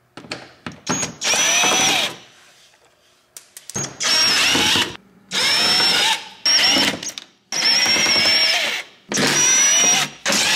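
DeWalt 18-volt cordless driver running in about six short bursts of about a second each, with a high whine, backing Torx screws out of the plastic underbody skid plate. A few light clicks come before the first burst.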